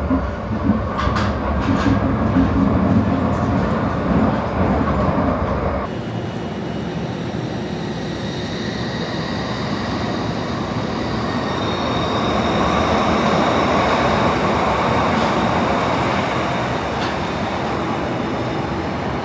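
A Glasgow Subway train rumbling and clattering heard from inside the car as it runs through the tunnel. About six seconds in, the sound changes to the same kind of train pulling out of a platform and running off into the tunnel, with a rising rush and a high whine that swell and then fade.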